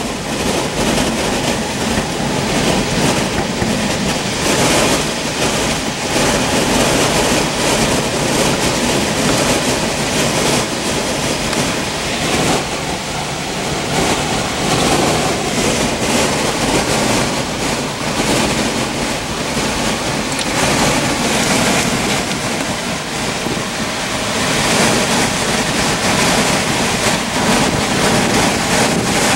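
Strong, gusty wind rushing across the microphone: the inflow wind feeding a developing multi-vortex tornado. The noise is loud and continuous, swelling and easing a little.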